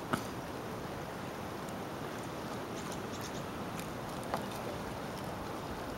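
Steady outdoor background rush, even and unbroken, with two faint short clicks: one at the start and one about four seconds in.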